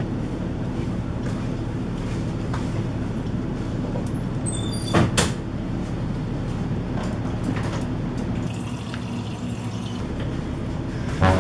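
A steady low hum, with a few sharp knocks and a clatter about five seconds in.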